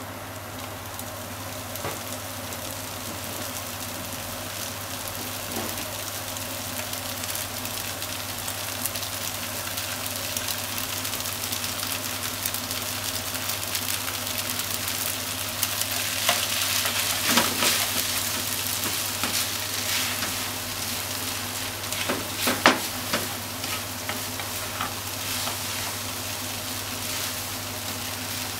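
Stir-fried soba noodles with pork, onion and sliced green onion sizzling in a frying pan, the hiss growing stronger about halfway through. A few sharp clicks and knocks stand out in the second half as the noodles are stirred with chopsticks.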